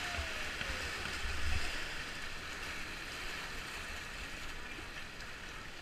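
Whitewater of a river rapid rushing past a kayak: a steady hiss of moving water that slowly gets quieter as the boat floats into calmer water. A low rumble of wind or water buffeting on the microphone is heard in the first couple of seconds.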